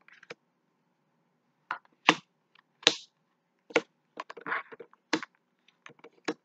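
Scattered sharp clicks and taps at uneven intervals, keys pressed on a computer keyboard, with a short scratchy rustle about four and a half seconds in.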